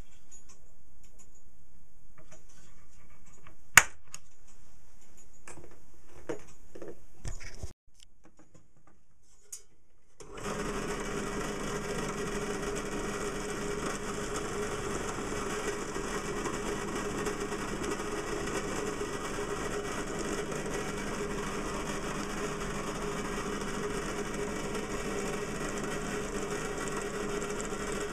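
A few sharp clicks and knocks, then, after a short quiet gap, a small electric motor running steadily at one speed for the rest of the time.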